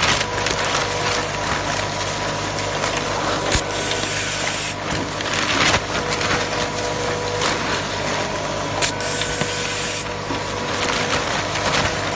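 Automatic cable tie machine and packing-line machinery running: a steady loud machine noise with a low hum, broken by several short hissing bursts and a sharp click about three and a half seconds in.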